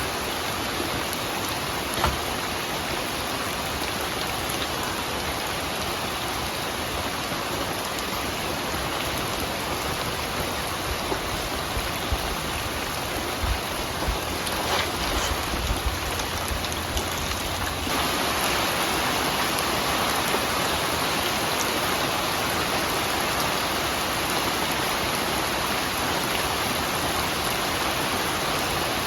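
Steady rain falling, with a single sharp tap about two seconds in and a few low thuds in the middle. The rain grows slightly louder about two-thirds of the way through.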